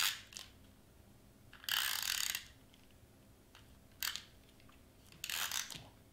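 Tombow permanent adhesive tape runner pressed and drawn along thin craft foam in four short strokes, each a brief mechanical run of the tape roller laying down glue. The longest stroke comes about two seconds in.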